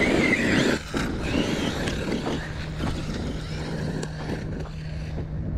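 Traxxas Sledge RC buggy's brushless electric motor whining up in pitch as it accelerates away. The whine drops off sharply about a second in, then comes back fainter in short rising and falling sweeps as the buggy drives off.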